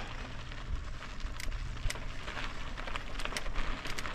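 Bicycle tyres rolling over sandy gravel: a steady crunching hiss with scattered small clicks and pops from the stones, over a low steady rumble.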